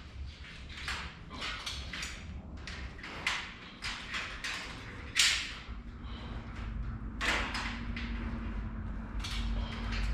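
A string of irregular knocks and clacks, the loudest about five seconds in, over a low rumble, with a faint steady hum coming in partway through.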